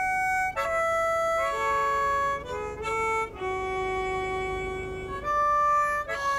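Harmonica played solo: a slow melody of held notes, one lower note held for almost two seconds in the middle.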